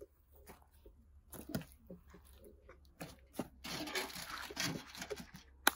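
Handling sounds: scattered light knocks and clicks, a rustling crunch about four seconds in, and a sharp click near the end.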